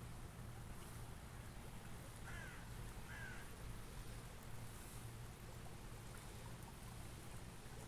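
A bird gives two short calls about a second apart, over a faint, steady low rumble.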